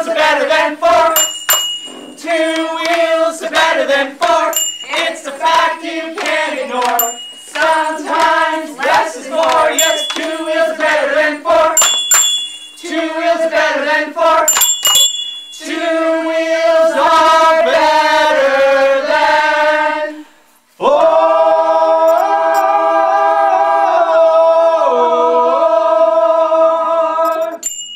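A small group singing a song together, with bicycle bells dinging here and there between lines. After a brief break about three quarters of the way through, the singers hold one long closing chord in harmony that stops just before the end.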